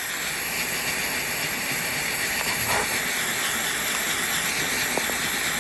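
Small handheld heat tool blowing a steady hiss as it shrinks heat-shrink tubing over a cable splice.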